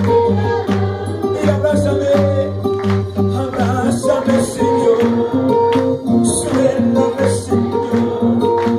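Live band music: electronic keyboard over a steady percussion beat, with a man singing into a microphone.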